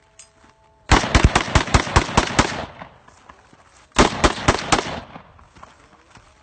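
Rifle fired in rapid strings: about nine shots in quick succession starting a second in, then after a short pause a second string of about five shots.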